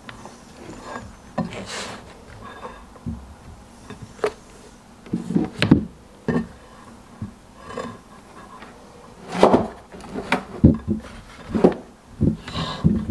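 Objects being set down and slid about on a heavy concrete tray and a wooden nightstand: a crystal tower and a small smart display. The sound is a string of irregular knocks, clunks and short scrapes, busiest about five seconds in and again in the last few seconds.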